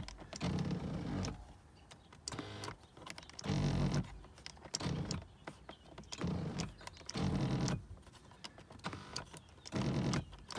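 Cadillac STS driver's power seat motor whirring in short runs of about a second, several times over with brief pauses, as the rear of the seat is driven up and down. The rear adjustment motor works again now that its drive shaft has been put back into the motor.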